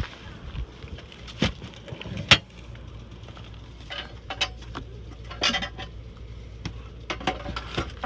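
Scattered sharp knocks and clinks, the loudest about two seconds in and a quick run of them near the end, over a low steady hum.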